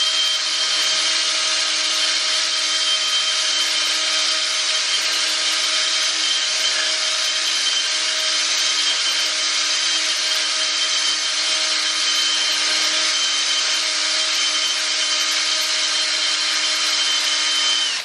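Electric drill running steadily, spinning a brass screw coated in abrasive grinding compound against the steel muzzle of a 9mm carbine barrel to lap a new crown. The motor whine holds one steady pitch and cuts off suddenly at the end.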